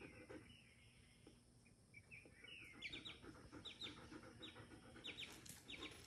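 Chicken chick peeping faintly: short, falling peeps, sparse at first and then coming in a quick run from about two seconds in.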